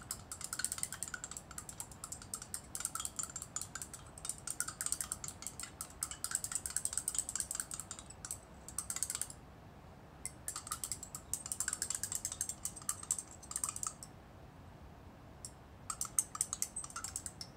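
Stirring rod clicking rapidly against the inside of a glass beaker as sodium carbonate powder is stirred into water to dissolve it. The clicking stops briefly about halfway and for a couple of seconds near the end.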